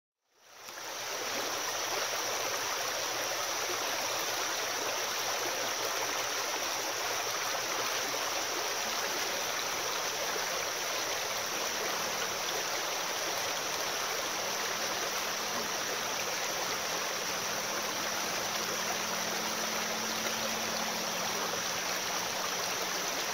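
Shallow creek water flowing steadily over rocks, a constant even rushing that fades in within the first second.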